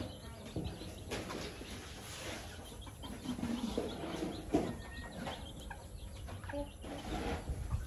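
A small flock of chickens clucking intermittently as they peck at the dirt, with scattered short taps of beaks on the ground.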